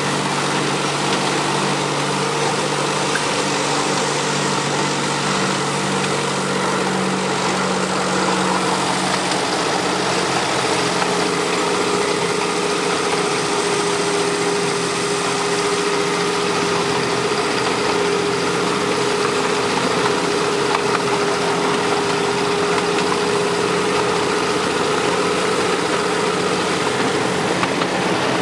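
Miniature 7¼ inch gauge GP40-outline locomotive running steadily with its train under way, its engine droning without pause. A steady whine sets in about ten seconds in and holds until near the end.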